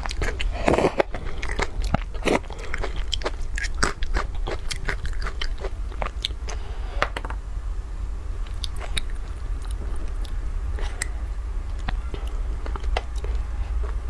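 Close-up eating sounds of a person slurping and chewing noodles: many quick wet mouth clicks, packed closely in the first half and sparser chewing after about seven seconds. A steady low hum runs underneath.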